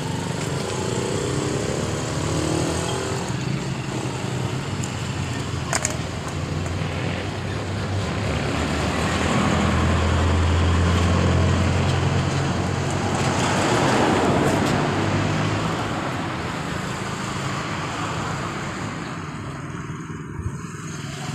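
Street traffic: motor vehicles running and passing by, with a steady low engine hum that swells as one passes close in the middle and then fades.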